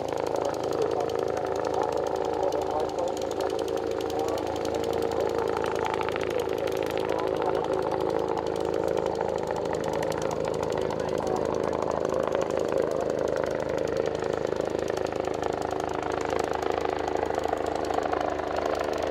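An engine running steadily at a constant pitch.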